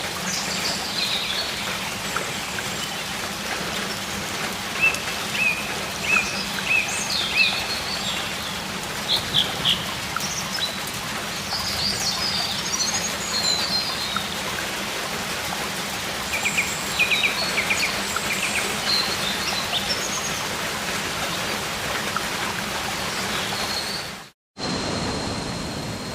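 Steady rush of a jungle waterfall with birds chirping and trilling over it at scattered moments. The sound drops out briefly near the end.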